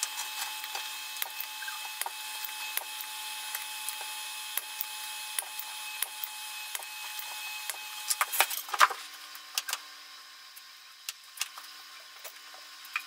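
Desoldering: solder being cleared from a circuit board's through-holes, heard as irregular small crackling clicks over a steady faint hum and hiss. A cluster of louder clicks comes about eight to nine seconds in.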